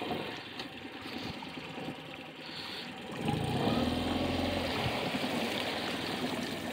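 Mercury 8 hp outboard motor running, with water rushing and splashing. The engine grows louder about three seconds in.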